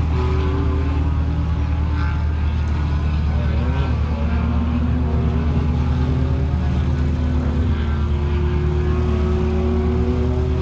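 Light propeller aircraft piston engines running steadily at low power, a deep, even drone. The pitch of one engine wavers briefly about four seconds in.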